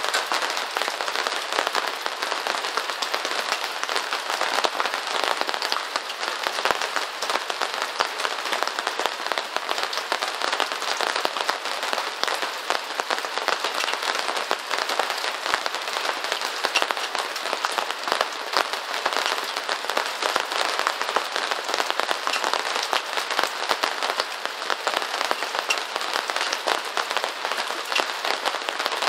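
Steady rain pattering on a surface: a dense, even spray of many small drop ticks.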